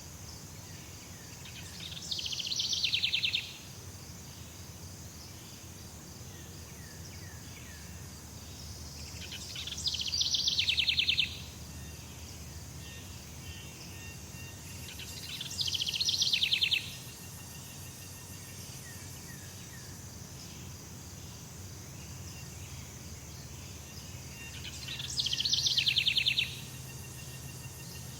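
Tropical jungle ambience: a steady high insect drone under a low rumble, broken four times by a loud rapid trilling call about a second and a half long that falls in pitch.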